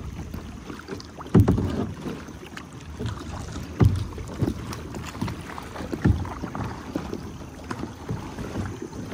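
Kayak paddling: paddle blades dipping and splashing in the sea about every two seconds, over steady water and wind noise.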